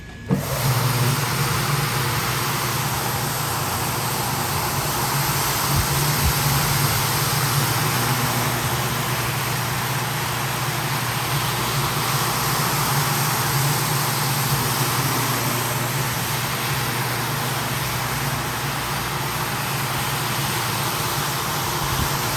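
Rotary floor machine running steadily as its brush scrubs shampoo into a wet rug: a constant motor hum under the hiss of the brush on the foaming pile. It starts abruptly right at the beginning.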